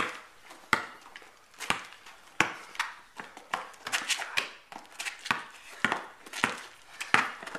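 Basketball dribbled on a paved driveway: a string of sharp bounces, roughly one or two a second.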